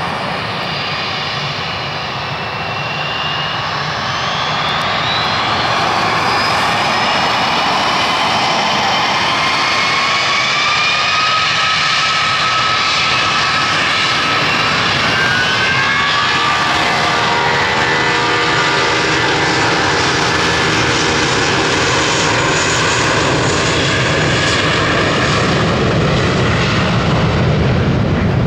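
Airbus A320's IAE V2500-A1 turbofan engines winding up to takeoff power. Several whining tones rise steadily in pitch for about the first fifteen seconds, then hold as a steady many-toned drone with a deeper rumble growing near the end as the jet rolls.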